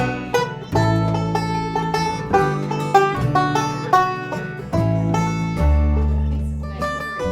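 Bluegrass band playing an instrumental break with no singing: quick plucked banjo notes over guitar and a double bass holding long low notes.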